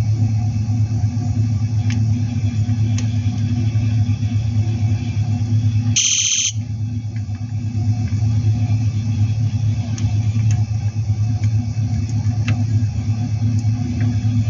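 Toy police motorcycle's built-in sound module playing a recorded engine-running sound, a steady low rumble. About six seconds in the engine sound cuts out for half a second while a short, high-pitched electronic tone plays, then the engine sound resumes.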